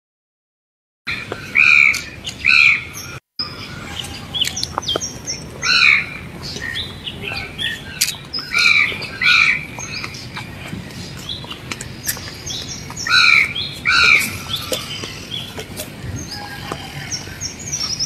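Birds calling: loud arching calls, often two in quick succession, recur every few seconds over many softer chirps. The sound cuts out completely for about the first second and again for a moment soon after.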